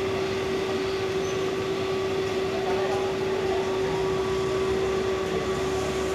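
Steady city street noise with a constant mid-pitched hum running through it.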